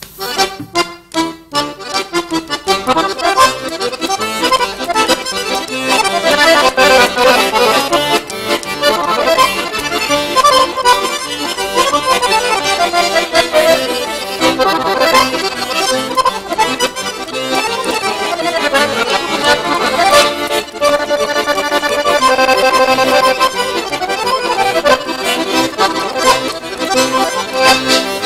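Two piano accordions playing a duet together, the music starting right at the opening with a quick run of notes and continuing steadily.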